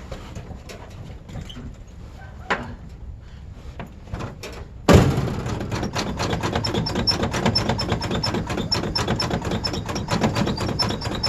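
Old Ford Bronco's cold, hard-starting engine being started: a few light clicks, then about five seconds in a sudden loud onset as the engine comes to life, going on with a fast, even pulsing.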